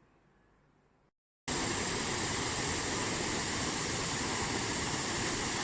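Steady rushing of a waterfall, starting suddenly about a second and a half in after a brief faint hiss and a moment of silence.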